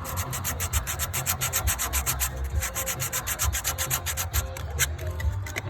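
Rolled 120-grit sandpaper worked rapidly back and forth inside a Jeep Wrangler door hinge's insert hole, a fast, even run of scraping strokes, several a second, that eases off near the end. It is cleaning corrosion out of the steel hinge so that a new delrin insert will slide in.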